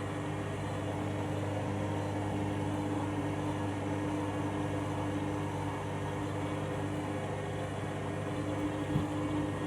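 Washing machine on a rapid wash in its drain stage: a steady, even hum from the drum and pump, with the load fairly balanced.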